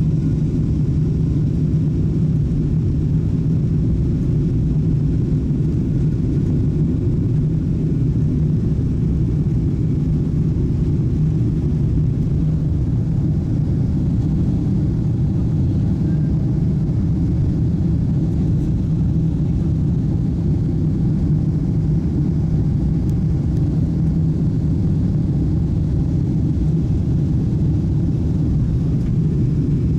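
Boeing 777-200 cabin noise at takeoff power, heard from a passenger seat: a steady, loud low rumble of the twin turbofan engines and rushing air through lift-off and the initial climb.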